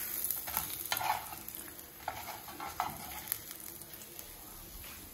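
Eggs sizzling in a frying pan, with a spatula scraping and tapping against the pan several times in the first few seconds. The sizzle gradually dies down.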